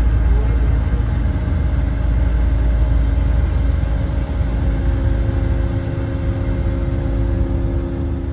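Low road rumble and engine drone inside a bus moving at highway speed. A steady hum comes in about halfway through.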